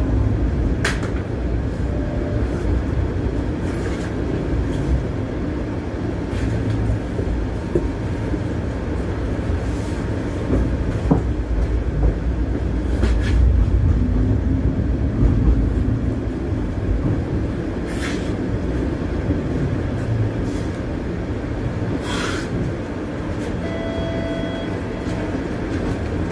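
TTC Bombardier Flexity streetcar running, heard from inside the car: a steady low rumble from the wheels and drive, with scattered clicks and rattles. Near the end a brief steady tone sounds over it.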